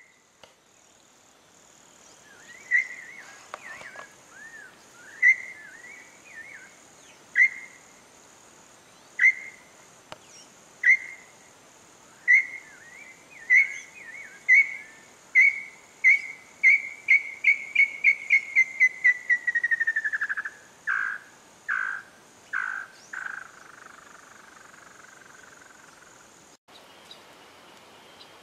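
A bird singing: clear whistled notes, spaced out at first, that speed up into a fast trill and then fall in pitch and slow to a few final notes.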